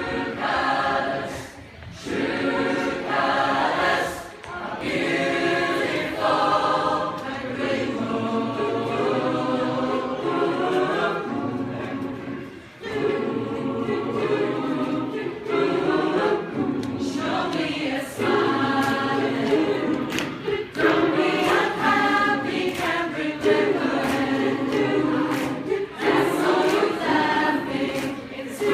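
A choir singing together in sustained phrases, with short breaks between some of them.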